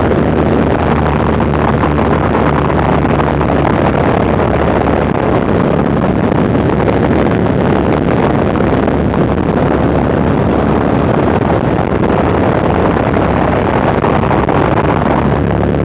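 Fokker Dr.I triplane in aerobatic flight: the engine runs steadily under a loud, constant rush of wind across the open cockpit and the microphone.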